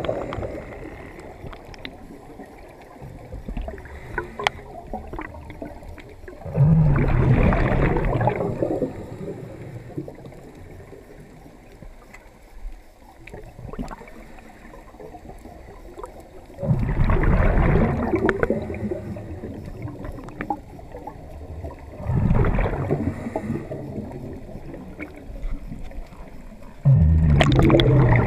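Bursts of bubbling and gurgling water, four in all and each a couple of seconds long, with faint clicking and crackling in between.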